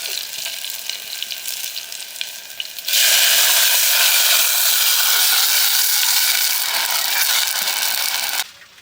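Food frying in hot oil in a pan, stirred with small scraping clicks; about three seconds in the sizzle suddenly gets much louder and stays steady, then cuts off abruptly near the end.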